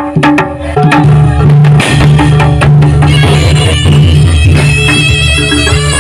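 Jaranan (kuda kepang) dance music starting up: a few sharp drum strikes, then a steady drum beat and bass, with a higher melody coming in about halfway through.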